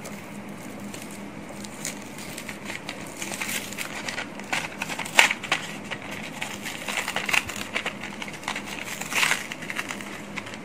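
Paper and thin plastic packaging being unwrapped by hand: irregular crinkling and crackling, busier from about two seconds in, as the small parts are freed from tissue wrap and a clear plastic tray.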